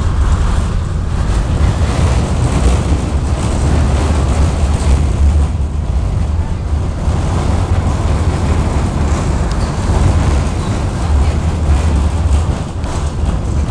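Inside a KTM-19 tram in motion: a steady low rumble with an even rushing hiss over it.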